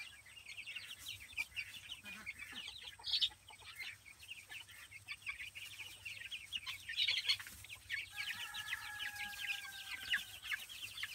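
A flock of young chicks peeping constantly in rapid, high-pitched cheeps. A faint steady tone sounds for a couple of seconds near the end.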